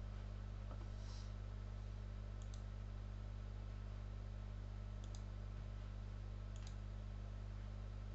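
Computer mouse clicks: three quick pairs of clicks a second or two apart, over a steady low hum.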